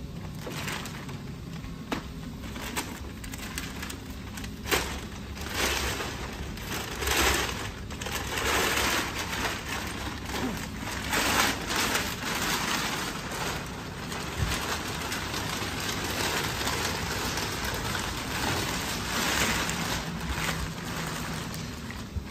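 Metallised foil packaging bag crinkling and rustling in irregular bursts as it is pulled and torn off a crated machine, over a steady low hum.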